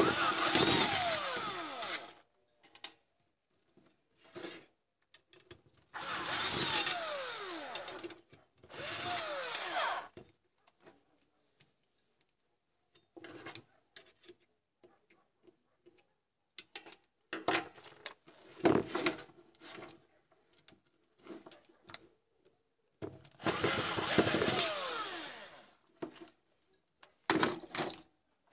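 Cordless drill-driver running in about five short bursts, its motor whine rising and falling in pitch as the trigger is squeezed and released, turning screws in a computer power supply's sheet-metal case. Small clicks and knocks of handling come between the bursts.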